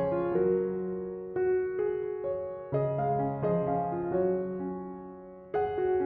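Background piano music: soft chords struck and left to fade, a new chord every second or two.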